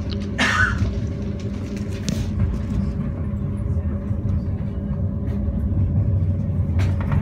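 Passenger train running on the rails, heard from inside the carriage: a steady low rumble with a faint steady hum and a few light clicks.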